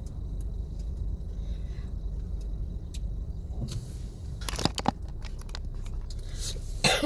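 Steady low road and engine rumble inside a moving car's cabin. A few sharp clicks and knocks come through about four and a half seconds in and again at the very end.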